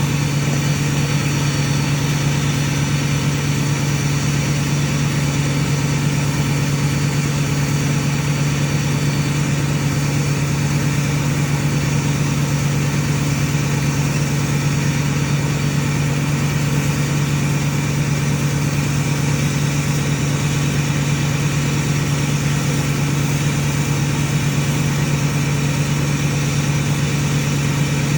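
Ford 6.4 Power Stroke V8 turbodiesel idling steadily at a raised idle of about 1100 rpm, which the owner finds unusually high and loud for this tuned truck. A faint high whine sits over the engine for the first few seconds.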